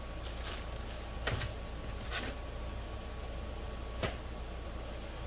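Packaging being handled on a table: a plastic-bagged wire harness rustling and set down, making about four short rustles and knocks over a steady low hum.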